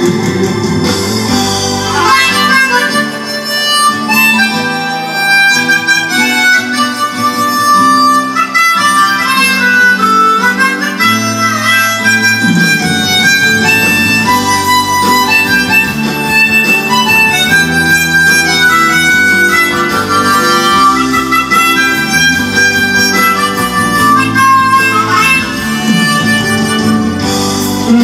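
Harmonica solo, played with cupped hands, carrying the melody over a guitar and bass accompaniment in the instrumental break of a pop ballad, with no singing.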